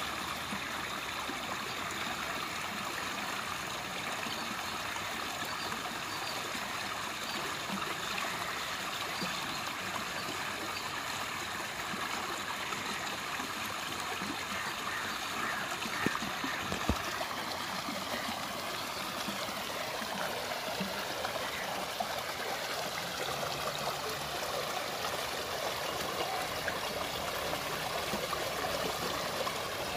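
Muddy floodwater rushing and gurgling through a small drain opening under a wall, a steady rush of fast-flowing runoff. Two brief knocks come about halfway through.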